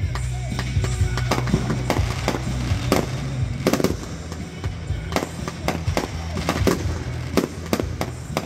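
Aerial firework shells bursting in quick, irregular succession, many sharp bangs and crackles, with music playing underneath.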